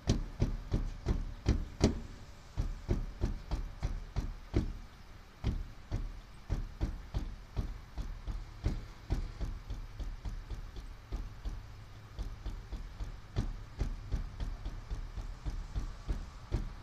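Horn button on a 1976 Chevy Blazer's steering wheel being pounded by hand, a fast run of knocks about three to four a second, with no horn sounding: the horn is failing to work, a fault the owner suspects lies in the horn button switch in the steering column.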